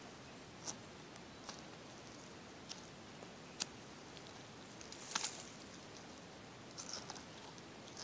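Faint, scattered small clicks and wet handling sounds from gloved hands and a multi-tool working inside a deer's body cavity during field dressing. The sharpest is a quick pair of clicks about five seconds in.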